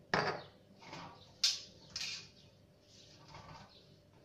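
A hand wiping olive oil around a baking tray: a few short rubbing swishes, with two sharp clicks about a second and a half and two seconds in as things are handled.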